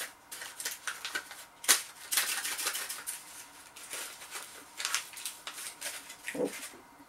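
Paper food cone rustling and crinkling as hands tear and unroll it to free a battered fish chunk that is stuck inside. There is a sharp crackle about one and a half seconds in, then a busier stretch of crinkling.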